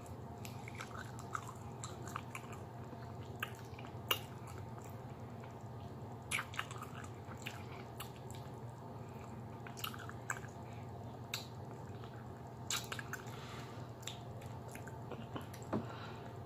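Close-up mouth sounds of a person biting and chewing fatty oxtail meat off the bone: irregular wet smacks and clicks, a few sharper than the rest, over a steady low hum.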